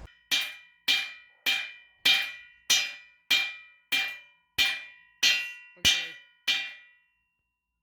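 Hammer striking the steel plate of a welded steel anvil stand eleven times at an even pace, each blow ringing briefly with a metallic clang; the strikes stop near the end.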